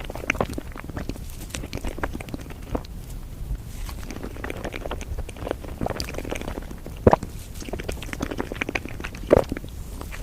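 Close-miked chewing and mouth sounds of a person eating, with many small wet clicks and two sharper, louder clacks about seven and nine seconds in.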